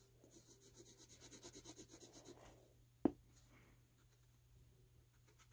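Pencil scribbling quickly back and forth on paper, about nine strokes a second, shading in a small area dark. It stops after a couple of seconds, and a single sharp tap follows shortly after.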